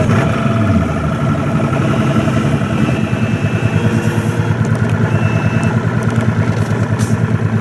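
Outboard motor running at low speed on the boat carrying the recording, a steady pulsing engine note.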